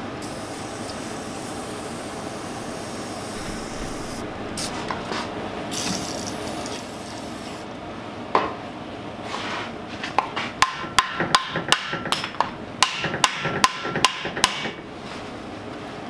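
A quick run of about fifteen hammer blows near the end, three to four a second, some with a short metallic ring: an attempt to drive a seized piston out of an antique John Deere 1010 engine block, which does not budge. Before the blows, a steady hiss.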